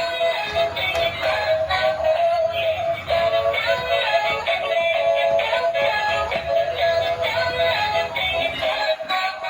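Battery-powered Minnie Mouse dancing toy playing its built-in song through its small speaker: a thin, tinny sung melody that runs without a break.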